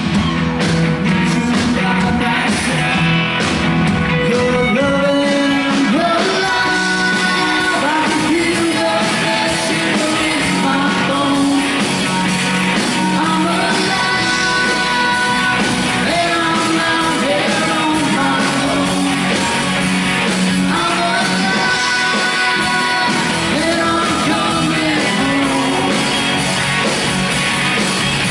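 Live rock band playing, with electric guitars, bass, drums and keyboard under a sung vocal line.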